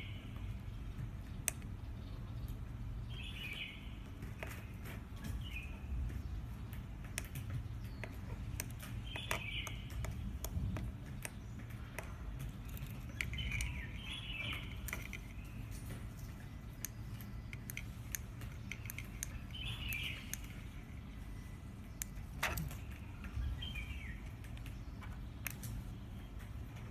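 Scattered sharp clicks of small plastic remote-control buttons being pressed, with a bird chirping briefly every few seconds over a steady low hum.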